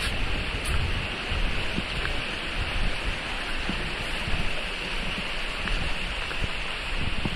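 Steady rush of water flowing in a narrow irrigation channel, with wind buffeting the microphone in irregular low gusts.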